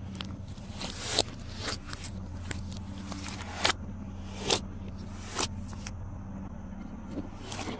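Glossy slime being worked by hand, giving sharp sticky pops and crackles at irregular intervals, about one a second.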